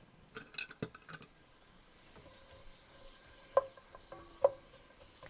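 Chopped onion sautéing in a little oil in a frying pan, stirred with a spatula: a faint sizzle under scattered sharp taps of the utensil against the pan, the two loudest about a second apart in the second half.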